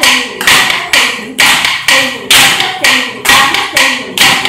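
Sharp wooden taps beating time for Bharatanatyam nattadavu practice. They fall about twice a second in a repeating uneven pattern, each strike dying away quickly.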